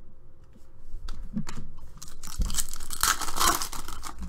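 Foil trading-card pack being torn open and crinkled by hand. It is loud and crackly from about two seconds in, after a few light clicks of cards being handled.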